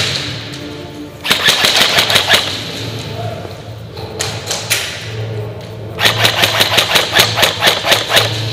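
Airsoft guns firing three bursts of rapid shots: about a second's worth a little after the start, a short burst near the middle, and a longer, evenly paced burst of about six shots a second toward the end.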